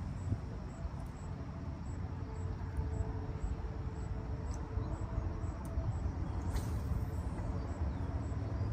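Outdoor ambience: a steady low rumble with a faint high-pitched insect chirp repeating about twice a second, and a brief high hiss about two-thirds of the way through.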